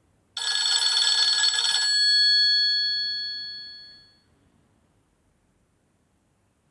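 Nokia N70 ringtone playing once: a dense, rattling ring starting suddenly about half a second in and lasting about a second and a half, then a few clear tones ringing on and fading out over about two more seconds.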